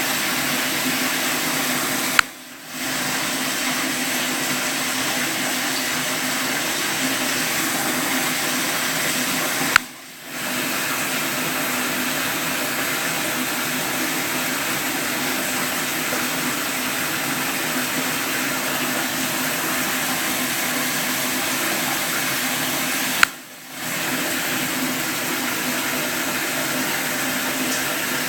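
Steady rushing water noise. Three times a sharp click sounds, each followed by a half-second drop in the rushing before it returns.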